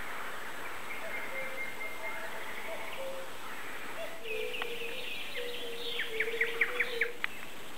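Woodland birdsong: a bird sings a quick run of short, sharp notes starting about four seconds in, loudest near the end, over a steady outdoor background of softer bird calls and hiss.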